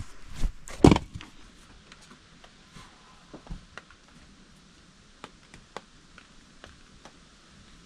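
Peeled wooden logs knocking together as they are handled, with a couple of loud knocks in the first second and then only sparse faint taps.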